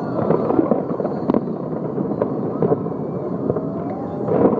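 Fireworks display going off: a dense, continuous crackle of pops and bangs, with a sharper bang about a second in and another burst near the end.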